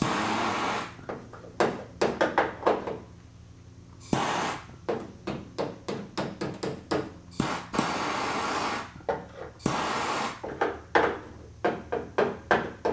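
Tool-handling sounds during lead body-solder work: many short knocks and scrapes, broken by several rushing hisses about a second long each.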